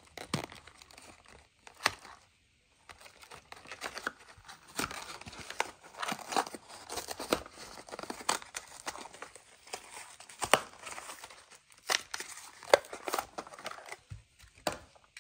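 Matchbox blister pack being torn open by hand: the cardboard backing card ripping and the plastic blister crinkling in irregular crackles, with a short pause about two seconds in.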